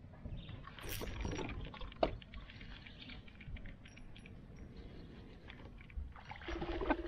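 Spinning reel and rod being worked from a plastic kayak: a quick run of small reel clicks and light knocks, with a sharp click about two seconds in. Near the end, water splashing and louder clicking grow.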